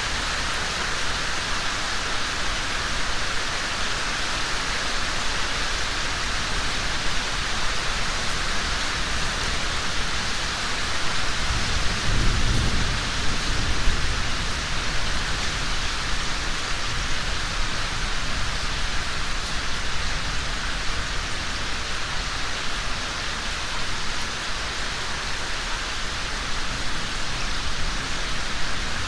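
Steady rain falling on the ground and foliage. A low rumble swells for a couple of seconds near the middle.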